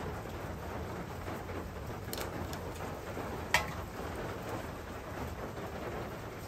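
Steady rain, with one sharp metallic clank about three and a half seconds in as a metal frying pan is set down on the stone hearth, and a few faint clicks shortly before.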